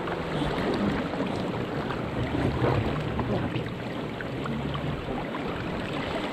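Water rushing and splashing along the hull of a National 18 sailing dinghy under sail, with wind noise.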